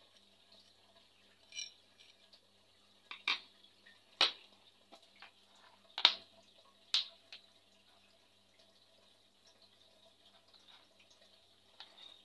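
Light metallic clicks and clinks of tools and shock-absorber parts being handled: five sharp ones in the first seven seconds and a faint one near the end.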